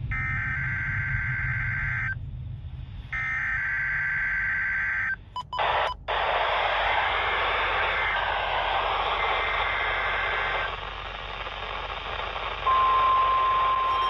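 NOAA Weather Radio emergency alert data bursts (the screeching two-tone SAME header), heard twice about a second apart. After a brief dropout comes a stretch of radio static hiss, then the steady single-pitch 1050 Hz weather radio warning alarm tone starts near the end.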